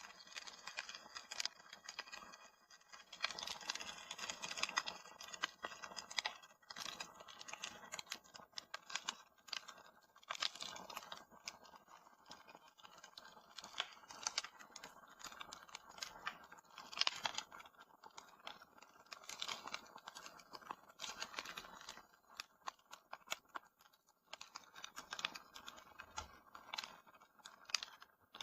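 Wood fire crackling in a fireplace, with dense, irregular crackles and pops.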